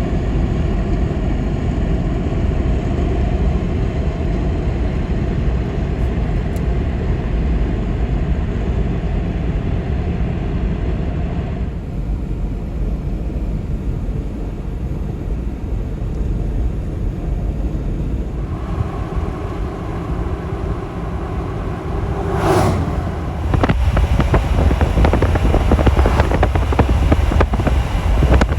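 A vehicle's engine running steadily, with the sound changing abruptly about 12 and 18 seconds in. A brief sweep rising and falling in pitch about 22 seconds in.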